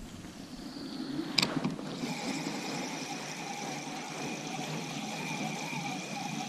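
Spinning reel being cranked: a sharp click about one and a half seconds in, then from about two seconds a steady high whine of the reel's gears as line is wound in.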